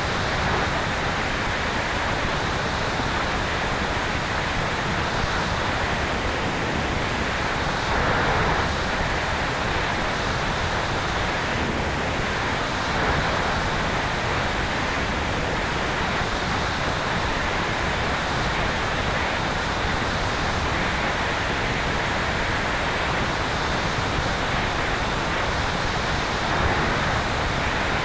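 Steady rush of wind streaming past a camera mounted on the tail of a Sonex Xenos electric airplane in cruising flight, with a few slight swells and no distinct motor or propeller tone.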